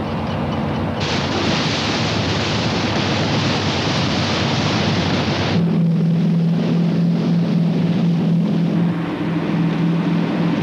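Boat running at speed: a loud rush of water and wind over engine noise, which about five and a half seconds in changes abruptly to a steady low engine drone as a motor cruiser drives hard through the waves.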